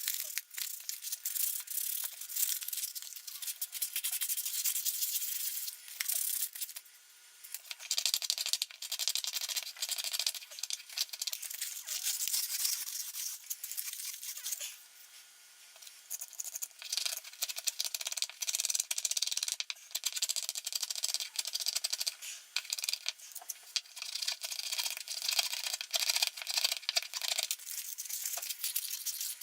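Hand scrubbing rust off a plane's metal parts with an abrasive, in quick back-and-forth strokes, pausing briefly about seven and fifteen seconds in.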